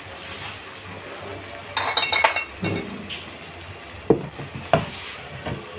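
Pan of vinegar and minced garlic sizzling faintly on the stove as it heats toward a boil. A ringing metal clink about two seconds in, then a few sharp knocks near the end.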